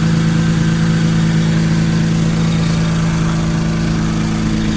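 Nissan 370Z's swapped-in VR30DDTT 3.0-litre twin-turbo V6 idling steadily.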